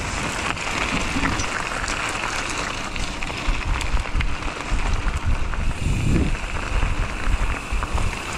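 Mountain bike rolling fast down a gravel road: tyres crunching over loose stones, with scattered small clicks and a fluctuating wind rumble on the action camera's microphone.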